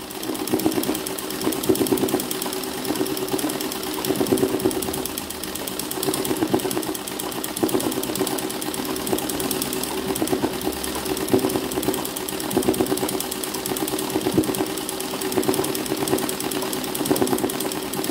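Sewing machine stitching free-motion embroidery on a hooped towel: a fast, continuous run of needle strokes whose pace swells and eases every second or two as the hoop is guided by hand.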